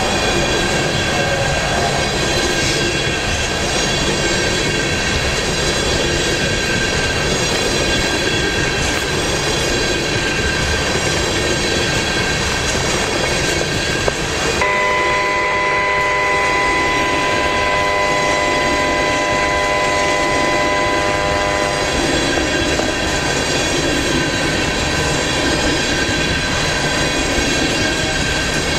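BNSF freight cars rolling past: a steady rumble of steel wheels on rail with a high ringing squeal from the wheels. About halfway through, a steady chord of several tones starts suddenly and holds for about seven seconds before stopping.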